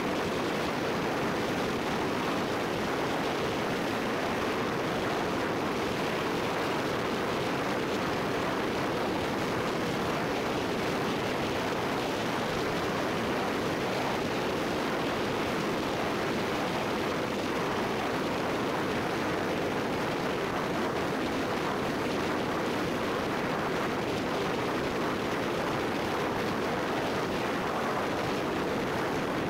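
Steady rushing road and wind noise from a car driving at highway speed, an even hiss without engine tones or knocks.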